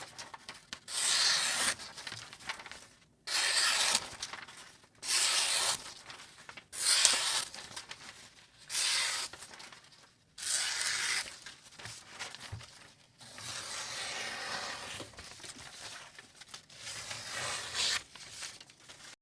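Repeated strokes of a Mora Bahco knife's blade, each about a second long with short pauses between, six in a row, then a longer, softer stroke-like stretch near the end.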